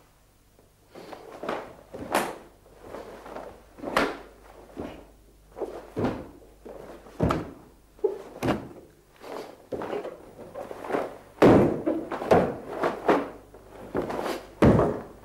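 Karate gi sleeves and trousers snapping and bare feet stamping and sliding on a wooden floor during a kata: a string of sharp snaps and thuds at uneven intervals, quickest and loudest about three-quarters of the way through.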